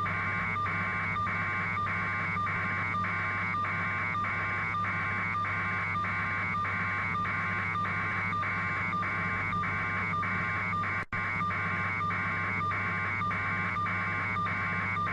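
Steady helicopter noise heard over a telephone-quality broadcast link: a constant low hum with a higher band that pulses evenly a little over twice a second. The signal drops out for an instant about eleven seconds in.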